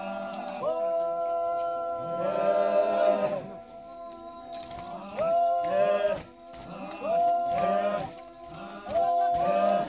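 Music: long held melody notes in short repeated phrases of about a second each, over a steady beat.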